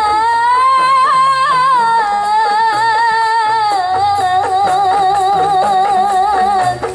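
Qasidah singing by a woman, who holds one long high note with a wavering vibrato and melisma. The pitch steps down a little about four seconds in and the note ends near the close. Faint rhythmic percussion and low accompaniment notes run underneath.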